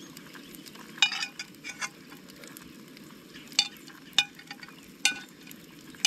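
Bacon frying in a pan with a steady sizzle, broken by about six sharp clicks and clinks, the loudest about a second in.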